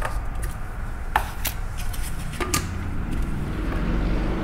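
Chunks of ginger dropped by hand into a glass blender jar of oil, vinegar and soy sauce, giving a handful of sharp clicks and knocks in the first few seconds, over a steady low rumble.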